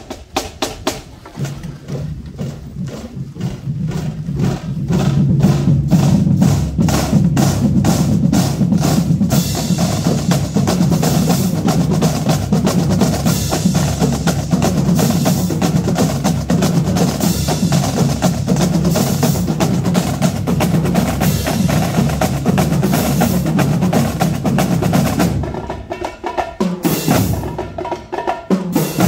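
A marching drum line (snare, tenor and bass drums) playing a cadence. It opens with even clicks, about four a second, that grow louder, then the full drum line plays. It thins out briefly near the end before coming back in.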